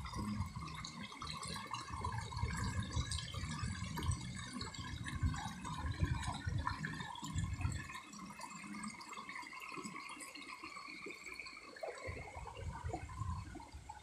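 Shallow stream trickling and babbling over rocks. Wind gusts rumble on the microphone for the first half and again briefly near the end.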